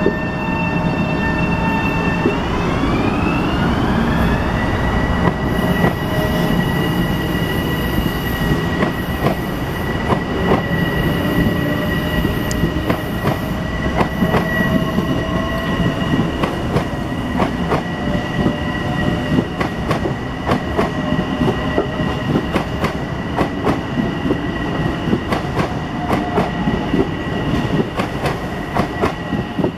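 Metro-North M7A electric multiple-unit train passing close by and picking up speed. Its traction motors whine, rising in pitch from about two seconds in to about five seconds and then holding steady, over the rumble of the cars. A run of wheel clicks over the rail joints comes more and more often through the rest of the pass.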